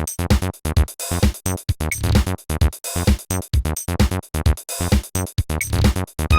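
Electronic music with a fast drum-machine beat and synthesizer chords.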